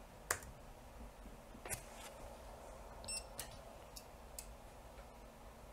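A few faint, separate clicks of laptop keys being pressed over quiet room tone.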